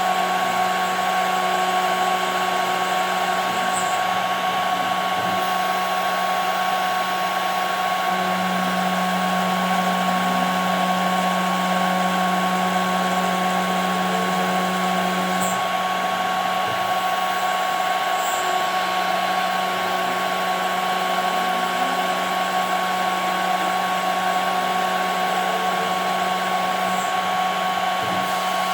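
CNC router spindle running with a steady whine while milling 5 mm plexiglass. A lower hum is louder from about eight seconds in until about fifteen.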